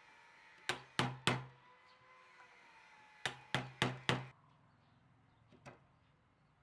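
Knocks on a hollow wooden surface: three quick knocks, a pause of about two seconds, then four more, each with a short low ring, and a faint single knock near the end.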